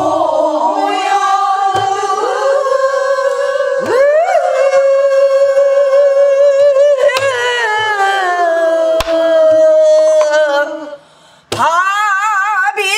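A woman sings a long held pansori note with a wide, wavering vibrato. It bends upward about four seconds in, sinks away near the eleventh second, and after a short break a new phrase begins. She keeps time with a few stick strokes on a buk barrel drum.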